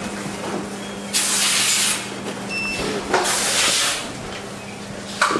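Factory production-line machinery: a steady hum under two loud hissing bursts, each just under a second long, about two seconds apart.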